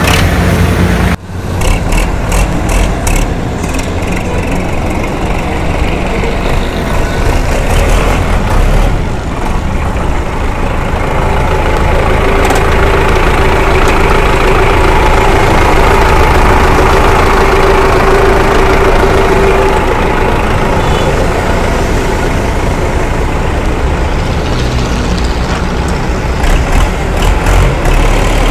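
Belarus 512 tractor's diesel engine running steadily, growing louder and uneven near the end as the tractor moves off.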